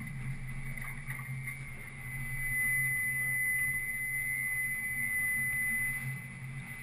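Boat engine running steadily, a constant low hum, with a steady high-pitched whine that grows louder about two seconds in.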